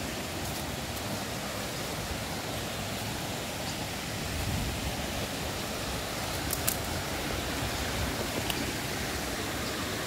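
Waterfall water rushing in a steady, even roar, with a brief sharp click or two about two-thirds of the way in.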